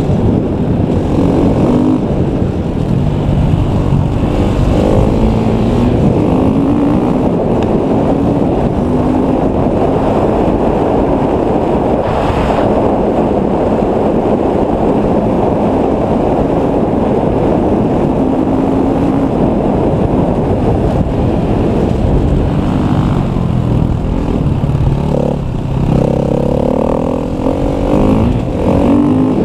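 KTM EXC 250 enduro motorcycle engine under hard riding, its revs rising and falling, with a few quick climbs near the end. Wind rushes over the microphone throughout.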